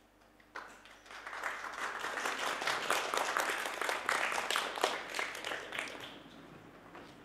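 Theatre audience applauding. The clapping starts about half a second in, swells, then fades away near the end.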